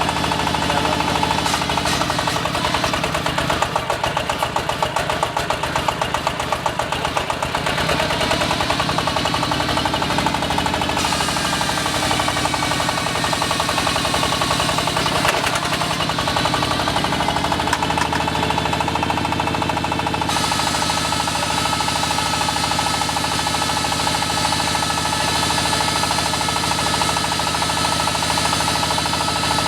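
Diesel engine of an AKL-150Y hydraulic water well drilling rig running steadily, with a rapid firing beat and a pulsing swell in loudness a few seconds in.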